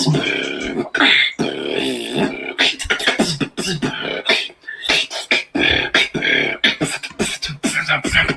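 Beatboxing: a continuous stream of mouth-made drum sounds and hummed, pitched vocal lines, turning to quick, dense clicks from about halfway through.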